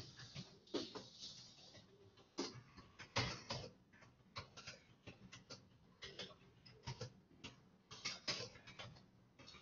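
Faint, irregular clicks and small taps, a few a second and unevenly spaced, with no speech.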